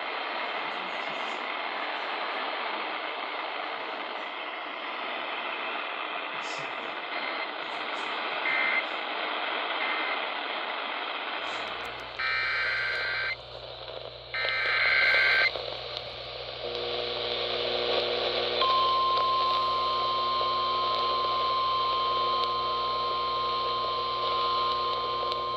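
Weather radio static hiss for about twelve seconds, then two short bursts of warbling data tones (SAME alert header codes), then a steady single-pitch alarm tone, the NOAA Weather Radio warning alarm, starting near the end and signalling that a new warning broadcast follows.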